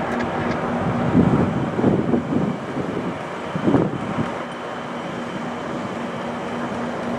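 GO Transit MPI MP40PH-3C diesel-electric locomotive 614 running as its commuter train rolls slowly into the station. Wind gusts on the microphone about one to four seconds in.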